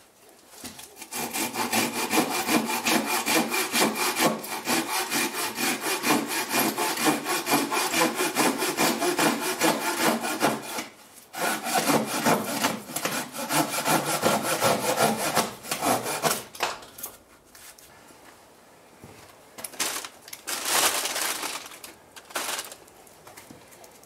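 Hand saw cutting wood in quick, even back-and-forth strokes. It stops briefly about ten seconds in, runs again for about five seconds, then gives a short burst of strokes near the end.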